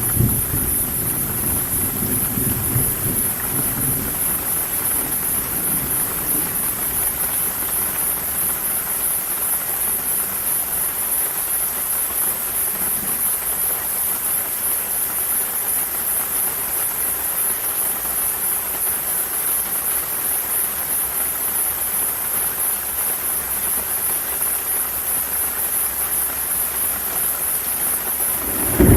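Steady rain falling during a thunderstorm, with a steady high-pitched hiss over it. A low rumble dies away in the first few seconds.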